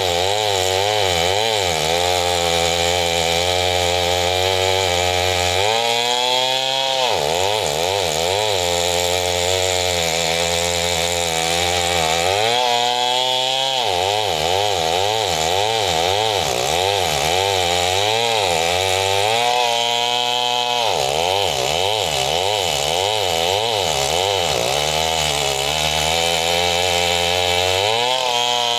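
Two-stroke chainsaw ripping lengthwise through a squared log, the engine running hard under load. Its pitch wavers through the cut and rises briefly about four times, every six or seven seconds.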